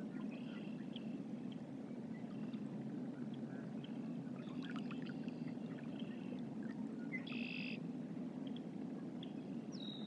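Steady low outdoor rush of river ambience, with faint short chirps from distant birds scattered through, the longest about seven seconds in.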